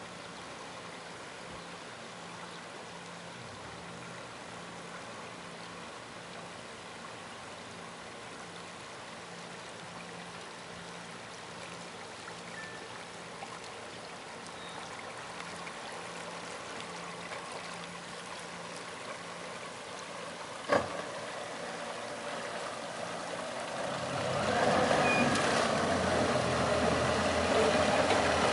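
Lobster boat engine running as the boat motors across a calm harbor: a faint steady hum at first, growing much louder and closer from about twenty-four seconds in. A single sharp click about twenty seconds in.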